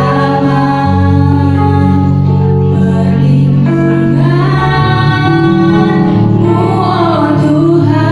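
Two girls singing a Christian song as a duet into microphones, amplified over a loudspeaker, with steady instrumental accompaniment holding low notes that change every second or two.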